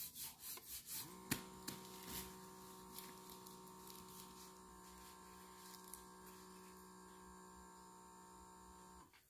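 Small air pump of an Equate automatic blood pressure monitor running to inflate the arm cuff: a steady hum that starts about a second in after a few light clicks, rises slightly as it gets going, holds steady, and cuts off just before the end.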